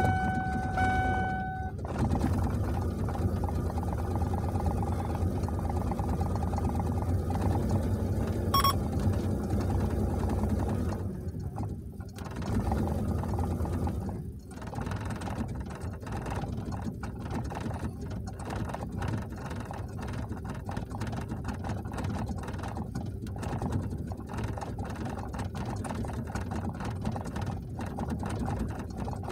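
Ford Explorer's 4.0 L OHV V6 running just after a start for the key-on-engine-running self-test, heard from inside the cab. It runs at a steady, faster idle at first, then its note drops and turns quieter and less even from about twelve seconds in. The engine has been running rich with a bad idle.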